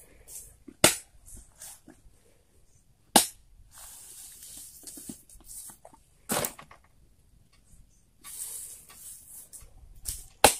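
Four sharp knocks a few seconds apart as heavy oil palm fruit bunches are handled and set onto a motorcycle's wooden carrying rack, with rustling between the knocks.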